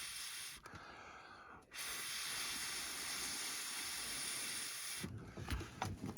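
A steady hiss of a gas or spray jet being played on the side-by-side's frozen ignition key to thaw it. It drops out briefly about a second in, and there are a few clicks and knocks near the end.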